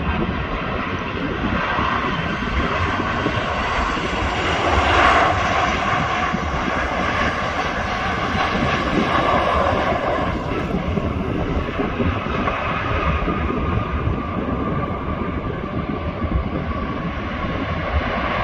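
Jet airliner engines running, a steady loud rush of noise with a faint higher whine.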